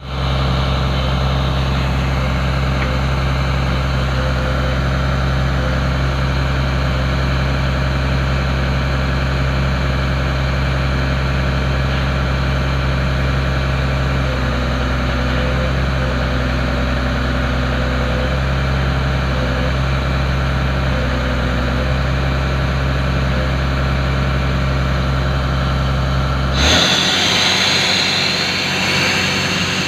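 An engine running steadily at a constant speed, the kind that drives the air compressor for a pneumatic rock drill. Near the end the low drone cuts off abruptly and a loud hiss takes over.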